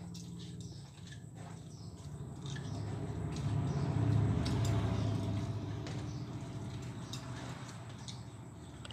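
Wet chewing, lip-smacking and fingers working food on steel plates as two people eat rice and egg curry by hand. Scattered small clicks sit over a low rumble that swells in the middle and fades.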